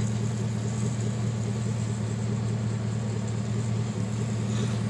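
Vehicle engine idling, a steady low hum that does not change.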